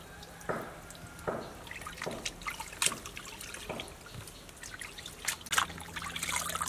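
Water dripping and splashing as plucked quail are lifted out of a basin of rinse water and squeezed out by hand over a plastic colander, with irregular drips and small splashes.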